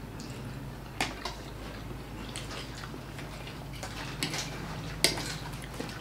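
Eating sounds: chewing, with sharp clinks of a fork and chopsticks against plates about a second in and again, loudest, about five seconds in.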